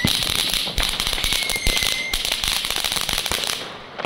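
Dense crackling of Chinese New Year firecrackers and fireworks, with a whistling tone for about a second early on. The crackling thins out near the end.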